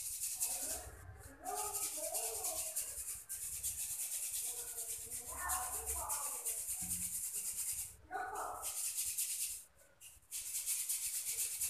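Roasted white sesame seeds being shaken and rubbed around a steel sieve: a steady rattling hiss of seeds on the mesh, broken by a few brief pauses. The sifting knocks loose powder through onto paper.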